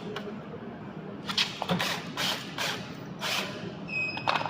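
Mechanical handling noise from work on a treadmill: several short rasping strokes about half a second apart, then a sharp click with a brief ring near the end.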